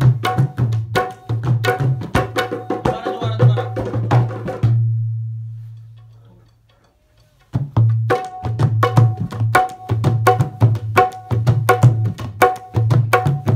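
Tabla played in a fast rhythm, deep bayan bass strokes under the sharp ringing strokes of the dayan, ending about 4.7 s in on a long bass stroke that rings and dies away. After about a second of silence, hand drumming starts again in a fast, steady rhythm.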